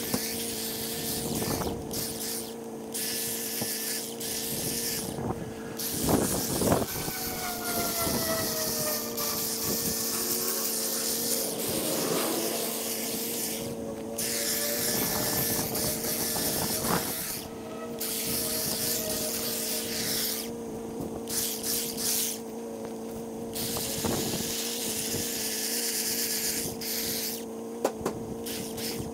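Lawn equipment running steadily: an engine's held drone, with a high hiss of cutting that cuts in and out sharply several times.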